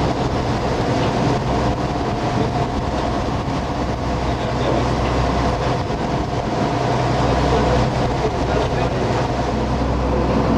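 Steady engine drone of a motor boat under way, a constant low hum with a few steady whining tones over it.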